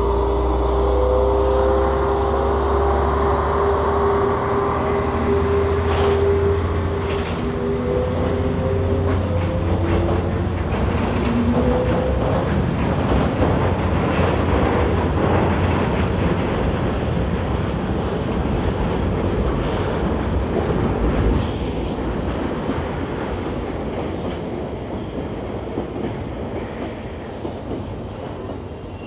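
Class 6400 diesel-electric freight locomotive pulling away, its engine running hard with a low drone and slightly rising whine tones. It is followed by the rumble and clatter of loaded tank wagons rolling past on the rails, which fades as the train draws off in the last few seconds.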